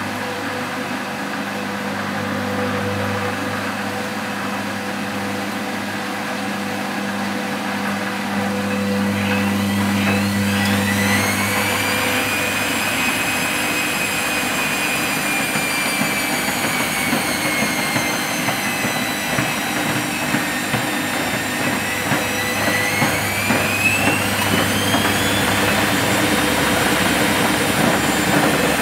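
Constructa Contura washing machine speeding up into a spin: a low steady hum, then about ten seconds in the motor whine climbs steeply in pitch, dips, and rises again, with a growing rumble from the drum.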